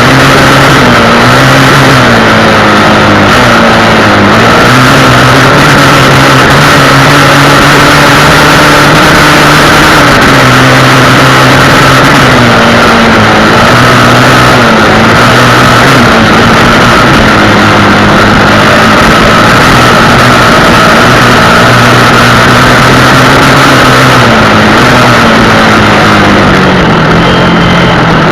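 Honda XR Tornado motorcycle's single-cylinder engine running steadily under way, its pitch rising and falling a little with the throttle.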